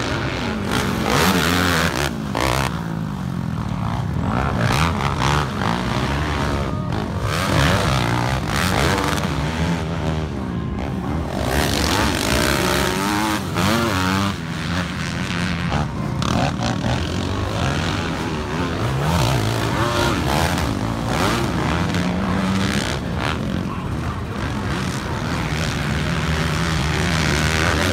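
Several race quad (ATV) engines revving hard on a motocross track, their pitches overlapping and rising and falling over and over as the riders accelerate, shift and back off.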